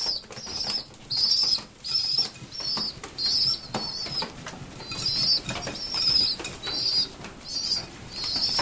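Young pigeons, about three weeks old, flapping their wings as they scramble over a feed bowl, with short high-pitched squeaking peeps repeating about twice a second.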